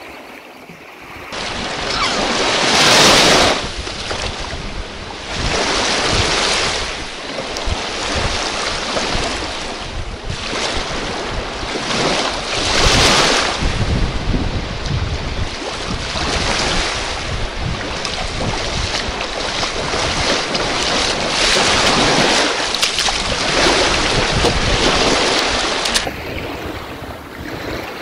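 Small surf breaking and washing up a sandy beach in swells every few seconds, with wind buffeting the microphone.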